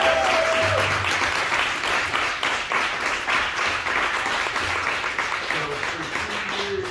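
Audience applauding as the last bending notes of a song fade out in the first second; the clapping thins out gradually over several seconds.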